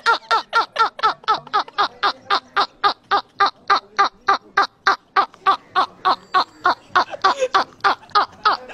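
Men laughing hard and without a break: a fast, even string of 'ha-ha' pulses, about five a second.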